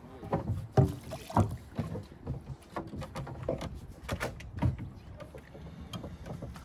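Wooden oars knocking and clattering against a wooden boat's hull, thole pins and each other as a rowing crew lifts and handles them. The knocks come irregularly, several a second, and the two loudest fall within the first second and a half.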